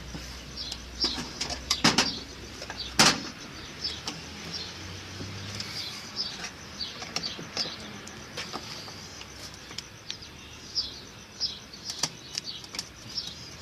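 Sharp metal clicks and scraping from hand tools working at a split lock washer on a washing machine's spin shaft, the loudest knocks about two and three seconds in. Small birds chirp in the background.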